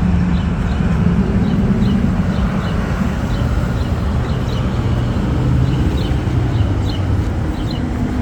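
Steady low rumble of vehicle noise with a humming engine tone that shifts slightly in pitch, and short faint high chirps scattered over it.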